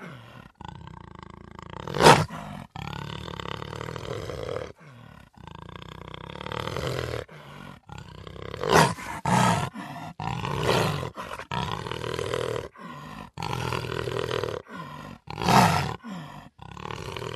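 Cheetah calling: a string of pitched calls broken by short pauses, with three louder, sharp calls spread through.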